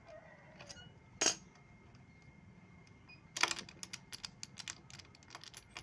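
A sharp click about a second in, then from about three seconds in a run of quick metallic clinks and taps: a spark plug spanner being worked on the spark plug of a Honda Supra 100 engine as the plug is unscrewed to check for spark.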